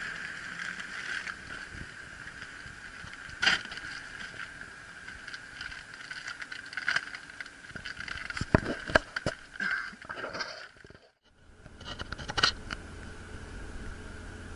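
Scattered knocks, clicks and scrapes over a steady background noise, loudest a few seconds in and in a cluster about eight to nine seconds in. The sound drops out briefly about eleven seconds in, then resumes with a low hum underneath.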